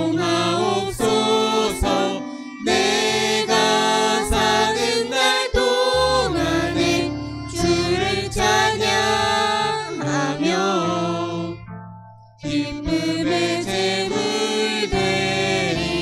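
Small church praise team performing a Korean worship song: a man and a woman sing the lead into microphones over acoustic guitar, violin and keyboard, in sung phrases with short breaks between them.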